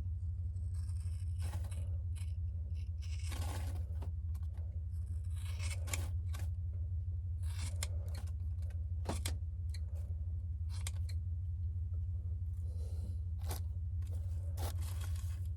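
Scissors cutting through a thick ponytail of hair, a run of irregular snips through the bunched strands, over a steady low hum.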